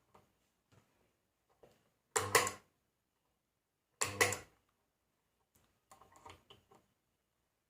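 Home-made spot welder's mains transformer buzzing in two short timed pulses, each about half a second long and under two seconds apart, switched on and off by its timer relay.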